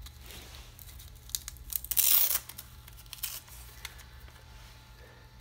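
Rustling, tearing handling noise as the supercapacitor pack is worked loose on an RC truck's chassis. The loudest tear comes about two seconds in, with a shorter one just after three seconds.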